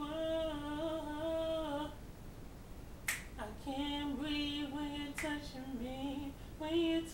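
A young man singing unaccompanied in a high voice, with held and sliding wordless notes, breaking off about two seconds in. A short sharp noise comes about three seconds in and again about five seconds in, each just before he sings again.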